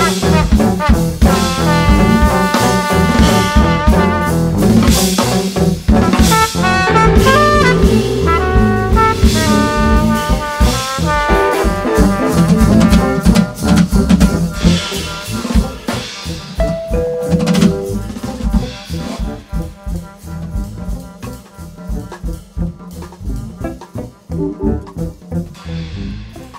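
Live jazz combo: a trumpet plays the lead line over a drum kit and rhythm section. From about two-thirds of the way in, the band thins out and gets steadily quieter.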